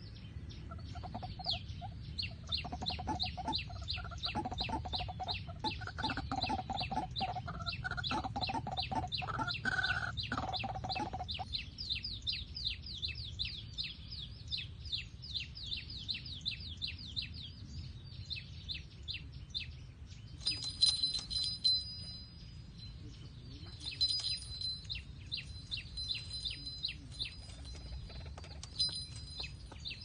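White-breasted waterhens calling: a pitched call repeated over and over for the first eleven seconds or so, over a fast, high ticking that stops about twenty seconds in. After that come bursts of high-pitched chirping.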